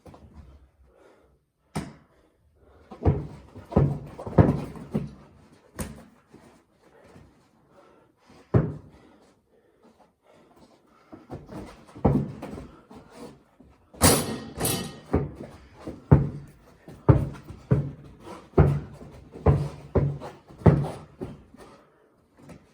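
Basketball bouncing on a hard indoor floor: a run of dull thumps that settle into a steady dribble in the second half, with one sharper, brighter hit about halfway through.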